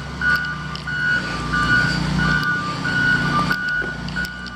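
Reversing alarm on a piece of heavy construction equipment beeping steadily, about three beeps every two seconds, over the low rumble of its engine, which grows louder in the middle.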